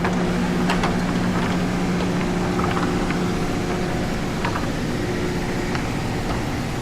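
Portable generator engine running steadily with a constant hum. The strongest tone of the hum drops away about halfway through, and a few light clicks and knocks come over it.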